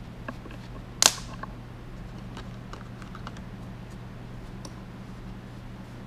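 Small steel set screws clicking and clinking against a steel bench and parts tray as they are picked out and wiped with a shop towel, with one sharp clack about a second in. A steady low hum runs underneath.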